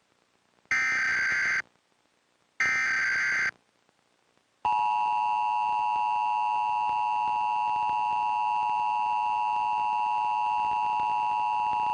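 Emergency Alert System broadcast tones. Two short bursts of the SAME digital header data, a harsh screech about a second each, come first. About five seconds in, the EAS attention signal begins: the steady two-tone alert tone, held unbroken.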